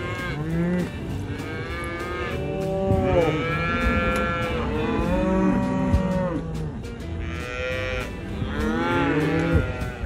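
Several calves bawling, many calls overlapping one after another.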